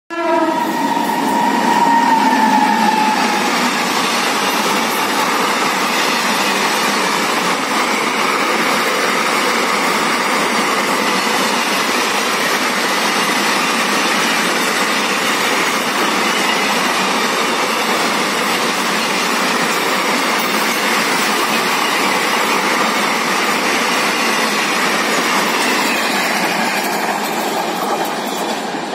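Container freight train hauled by a WAG-9 electric locomotive passing at speed. A horn sounds in the first few seconds, its pitch dropping as it goes by. Then comes the steady loud rush of wagon wheels on the rails as the wagons go past, easing a little near the end.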